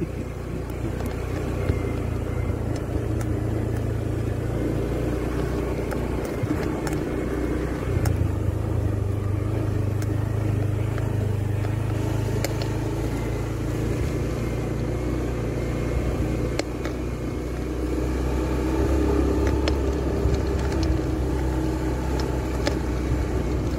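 Automatic scooter engine running steadily under way on a sandy dirt track. Its pitch steps up about a third of the way in and settles back later, with scattered light clicks over the drone.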